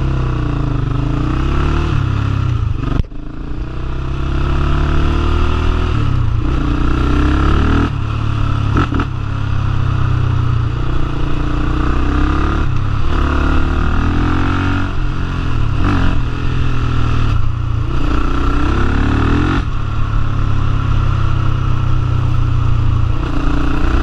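Yamaha Raptor 700R quad's single-cylinder four-stroke engine, with its freshly repaired exhaust, pulling hard under way. The revs rise and drop again and again as it is worked up through the gears, with a brief cut about three seconds in.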